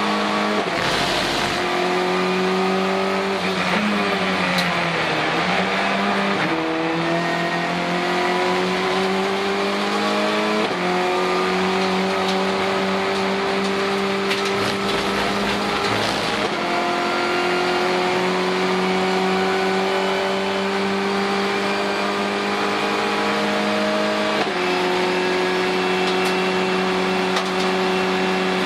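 Renault Clio Cup race car's turbocharged 1.6-litre four-cylinder engine at full throttle, heard inside the cabin. Its pitch climbs slowly and steps at gear changes about 11, 16 and 24 seconds in, with a drop and recovery around 4 to 6 seconds in.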